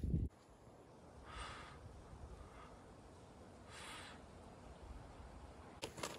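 A low rumbling noise cuts off abruptly just after the start. Then it is mostly quiet, with two short, faint puffs of breath about a second and four seconds in. Crunching footsteps on gravel begin near the end.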